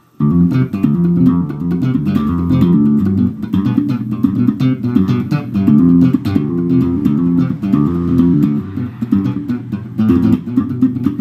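Warwick electric bass guitar played in a fast, funky line of short, percussive notes, starting abruptly a moment in.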